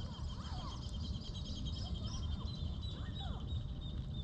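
Birds chirping, with a long, fast, even trill running through, over a steady low rumble of wind on the microphone.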